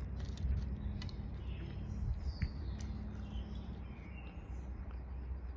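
Birds chirping faintly over a steady low rumble, with a few sharp clicks.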